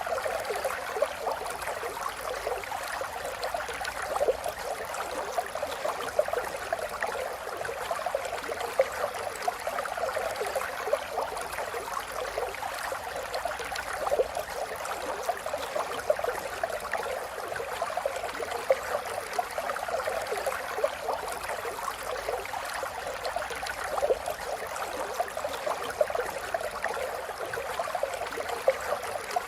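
River water flowing, a steady rush with constant small gurgles and splashes.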